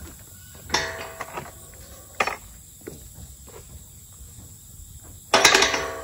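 Red steel tube farm gate opened and swung shut, its two-way latch clanking. A ringing clank comes a little under a second in, then a sharp click at about two seconds, and the loudest, ringing metal clang comes near the end as the gate shuts.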